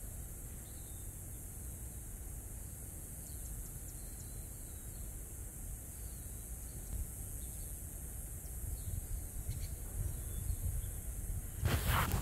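Outdoor street ambience: a steady low rumble of wind on the microphone with a constant high hiss and a few faint bird chirps. Near the end, loud rustling and knocking as the phone is handled and lowered.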